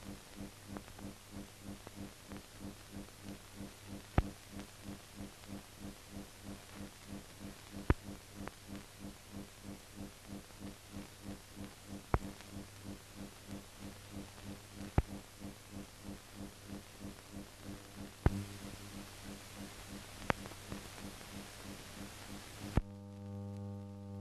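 Steady low hum pulsing about two to three times a second, with a sharp click every few seconds: the background noise of an old optical film soundtrack with no speech on it. Near the end the hum briefly shifts to a different, cleaner tone.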